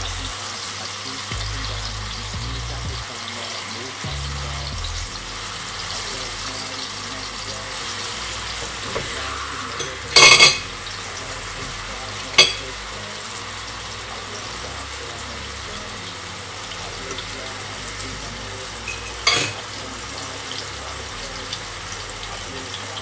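Banana halves frying in a pan, a steady sizzle. There are sharp clinks of a metal fork against the pan or plate: the loudest about ten seconds in, another two seconds later, and one more near the end. Faint background music with a low beat can be heard in the first few seconds.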